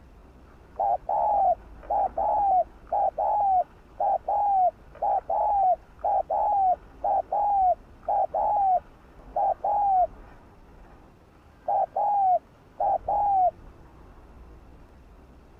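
Spotted dove cooing: a long run of short coos in close pairs, each note dipping in pitch at its end. The coos pause briefly about two thirds of the way through, then a few more pairs follow and stop a couple of seconds before the end.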